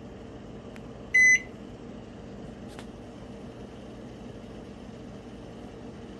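A digital kitchen timer on an appliance control panel gives one short, loud, high electronic beep about a second in as the 45-minute countdown is started, with faint clicks just before and after it. A steady low hum runs underneath.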